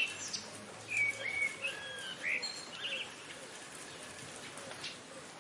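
Several short whistled bird calls, swooping up and down, over a steady hiss of falling rain; the calls stop about three seconds in and the rain carries on.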